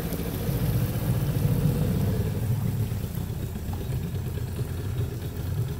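Outboard motor of a canoe running steadily at low speed, a low even engine rumble that swells slightly about a second in.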